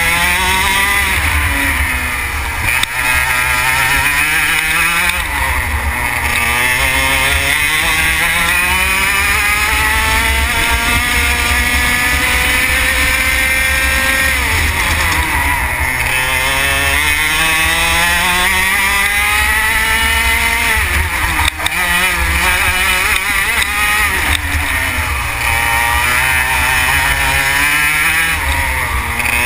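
Racing kart engine heard onboard, climbing steadily in pitch under acceleration and dropping sharply each time the driver lifts for a corner, five or six times; one long climb lasts about eight seconds on a straight.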